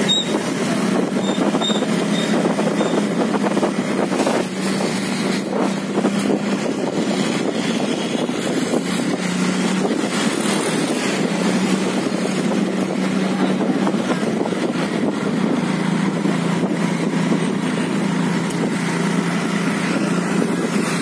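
Steady traffic noise of motorbikes and cars crawling through a jammed street, with a continuous engine hum underneath.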